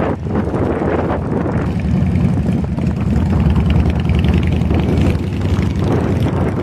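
Several motorcycle engines running at low speed as the bikes pull in, a steady low-pitched drone.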